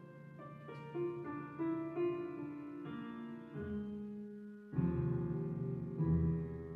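Slow piano music, a new note or chord struck every second or so, with a fuller low chord about two thirds of the way in.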